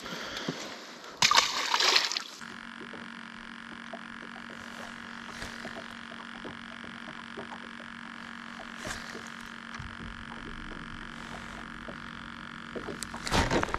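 Water splashing hard for about a second, starting about a second in. After it comes a steady low hum with faint scattered ticks.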